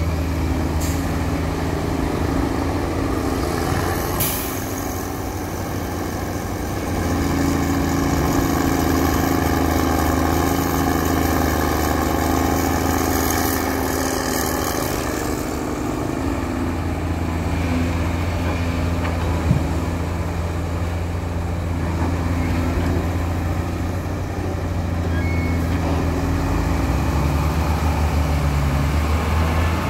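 Heavy diesel engines of a Komatsu PC350 hydraulic excavator and a loaded dump truck running steadily, the engine note swelling and easing as the excavator works its boom and bucket. A single short sharp knock about twenty seconds in.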